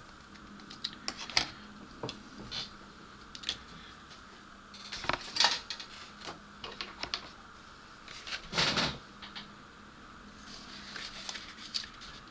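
Hard plastic model-kit hull pieces handled and set down on a cutting mat: scattered clicks and taps, with louder clatters about five and eight and a half seconds in.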